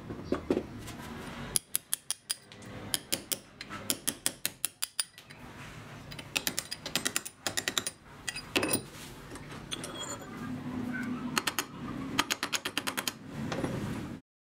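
Quick runs of sharp metal clicks and taps in several bursts, from an axe head being worked in a steel bench vise. The sound cuts off abruptly near the end.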